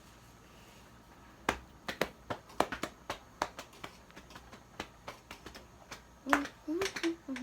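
Instant mac and cheese popping and spattering as it heats: a string of irregular sharp pops. A voice hums briefly near the end.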